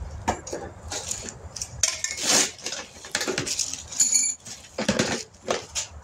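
Metal hand tools clinking and clanking as they are handled, irregular sharp clicks with no steady motor sound.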